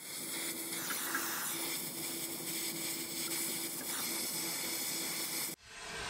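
Oxy-acetylene torch flame hissing steadily while brazing a copper refrigerant line joint. It cuts off abruptly about half a second before the end.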